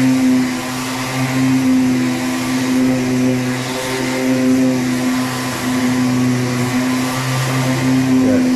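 An electric power tool's motor running steadily: a constant hum with a broad rushing hiss.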